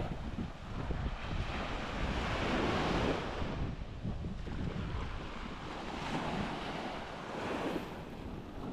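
Small sea waves breaking and washing up on a sandy shore, swelling and fading every few seconds, with wind buffeting the microphone in a low rumble.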